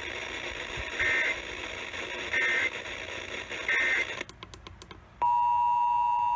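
Emergency Alert System end-of-message data bursts over FM radio hiss: three short, harsh digital chirps about a second and a half apart, marking the end of the alert. Then a few clicks as the hiss cuts out, and a steady beep of about a second near the end.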